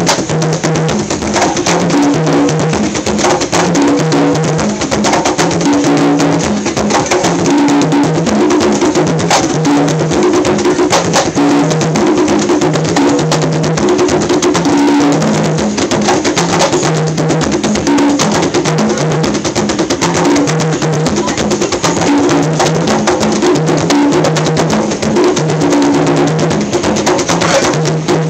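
Several conga drums played by hand together in a steady, continuous rhythm, low and higher drum tones alternating in a repeating pattern.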